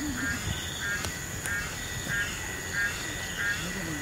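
A chorus of calling animals: a short, rhythmic call repeating about every three-quarters of a second over a steady high drone.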